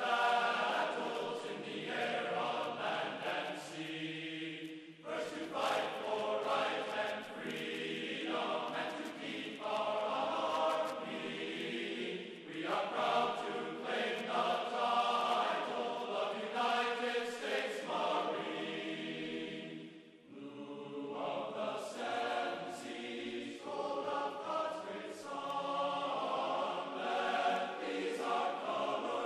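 Background vocal music: choral chanting in long sung phrases, with brief pauses about five seconds in and about twenty seconds in.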